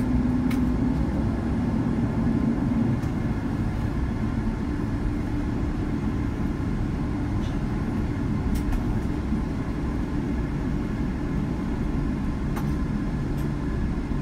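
Cabin noise of a Boeing 787-10 taxiing after landing: a steady low rumble from the engines at taxi idle, with a few faint clicks and a light hum that eases off about three seconds in.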